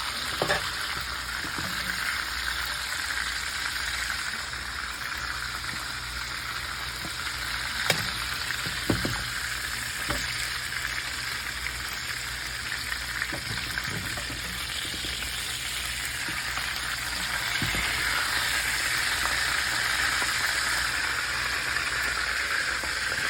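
Hot frying oil sizzling steadily in a skillet where breaded chicken-fried steaks have been frying, with a few short light knocks scattered through it. The sizzle grows somewhat louder over the last several seconds.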